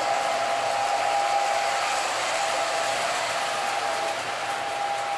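Lionel MPC Santa Fe F3 toy train running on three-rail tinplate track: a steady whir of the locomotive's motor with a faint even whine, and the wheels rolling on the rails. The transformer is turned up high to pull a heavy train.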